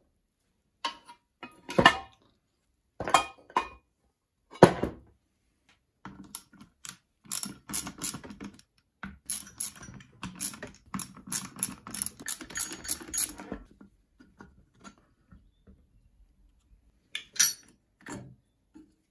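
Metal and plastic lawnmower engine parts knocking and clattering on a wooden workbench as they are handled and set down. For about eight seconds in the middle comes rapid, dense clicking as a socket ratchet turns a bolt out of the plastic air-filter housing, and two more knocks follow near the end.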